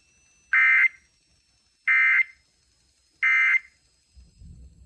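Emergency Alert System end-of-message signal: three identical short bursts of SAME digital data tones, shrill and buzzy, a little over a second apart, marking the end of the broadcast flash flood warning.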